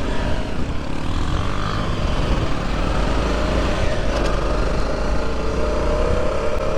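Motorcycle engine running while riding, its pitch drifting up and down with the throttle, over a steady low rumble of wind on the microphone.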